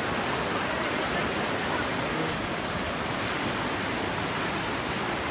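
Brown floodwater rushing over a road in a fast, churning torrent: a steady, even rush of water.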